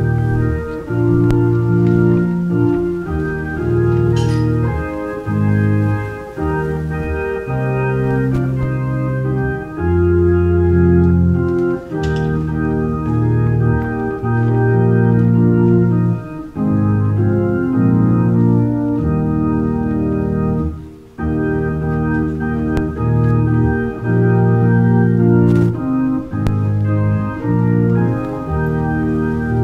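Organ playing a prelude: held chords over a bass line, with a brief break between phrases about two-thirds of the way through.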